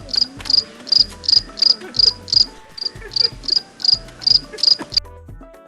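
An insect chirping in a steady rhythm of high, sharp chirps, about three a second, that cuts off abruptly about five seconds in. Quiet background music with a low beat plays beneath.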